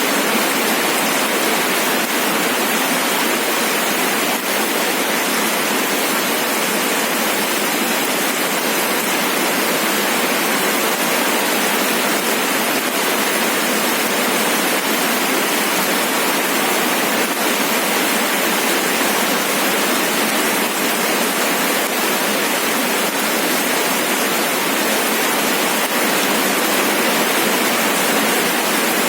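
Steady rain falling, an even dense hiss with no single drops or thunder standing out.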